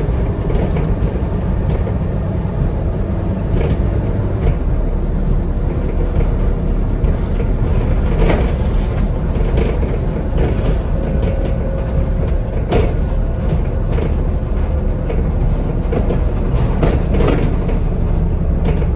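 Scania N230UD double-decker bus on the move, heard from inside on the upper deck: a steady diesel engine drone with frequent knocks and rattles from the body and fittings, and a faint steady whine.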